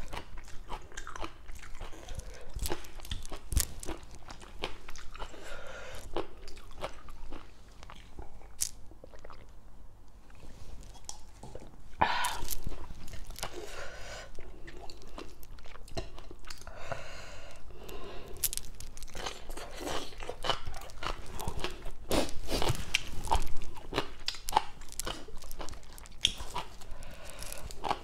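A person chewing and biting through crisp raw vegetables (cabbage leaves and shredded green papaya salad) close to the microphone, with irregular crunches throughout. The crunching is loudest about halfway through and again past three quarters of the way.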